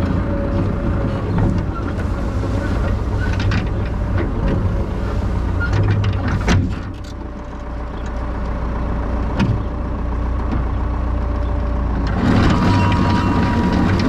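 Ford 7600 tractor's diesel engine and a 7-foot brush hog running steadily while mowing tall grass, with a sharp knock about six and a half seconds in. About twelve seconds in the sound gets louder and fuller.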